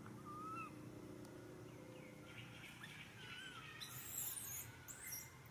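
Faint birds calling in the trees, with short curved whistled notes. About four seconds in comes a louder, harsh, high-pitched burst, and another follows about a second later.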